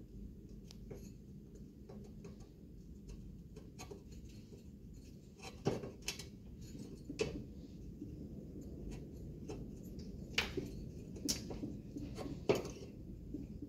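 Scattered metallic clinks and taps as the rusty flywheel of a small Briggs & Stratton engine is handled and turned by hand among tools on a workbench. The sharpest clinks come about halfway through and near the end, over a low steady hum.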